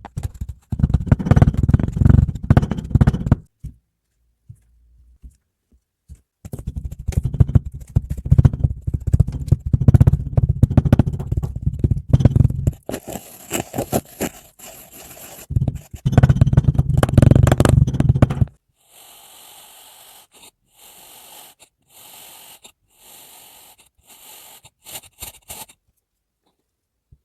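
Kinetic sand being squished and cut close to the microphone: dense crunching and crackling in two long stretches with a short pause between. Near the end it changes to a run of about eight short, quieter, hissing strokes.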